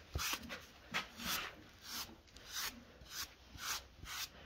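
Quick rubbing strokes of a grooming brush on a horse's coat, about two a second.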